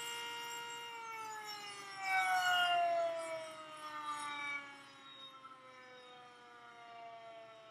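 A Sentry 10V outdoor warning siren holds a steady tone, then winds down, its pitch falling slowly from about a second in. It swells louder for a couple of seconds early in the wind-down, then fades as the pitch keeps dropping.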